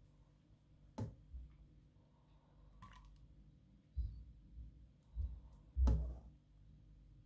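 Metal ladle knocking and scraping against the pot and the glass dish as thick carrot kheer is scooped and poured, a handful of separate knocks, the loudest about six seconds in.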